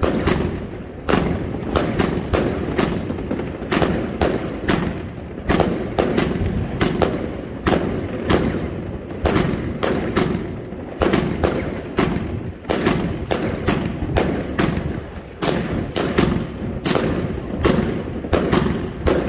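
Fireworks going off: loud sharp bangs in quick, irregular succession, a few a second, over a continuous background din.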